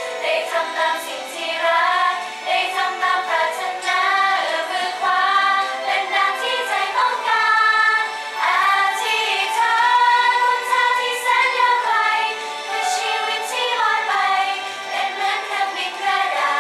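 Several young women singing a melody together.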